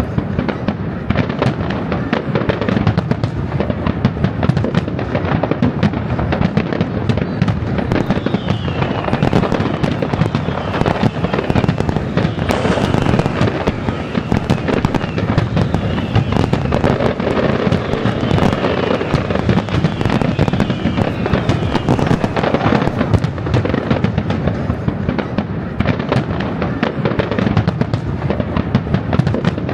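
Aerial fireworks display going off: a dense, continuous run of bangs and rapid crackles, with a few falling whistles in the middle.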